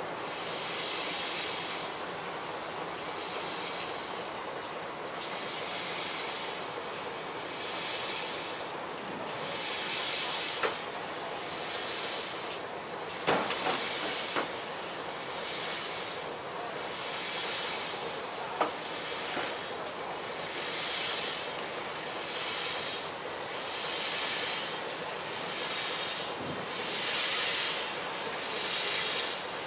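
BR Standard Class 2MT 2-6-0 steam locomotive working slowly with a tanker freight, its cylinder drain cocks open: steam hisses in a slow rhythm of roughly one puff every one and a half to two seconds. A few sharp metallic clanks from the train come around the middle.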